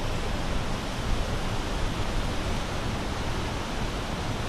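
Fast-flowing mountain river with a powerful current: a steady, even rush of water.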